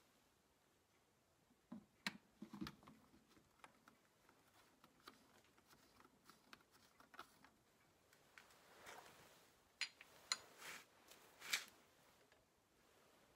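Quiet handling noises from work on a Massey Ferguson 35 tractor: scattered light clicks, a couple of soft knocks about two to three seconds in, and a few short rustles near the end, as the oil-bath air cleaner bowl is fitted and parts by the transmission are handled.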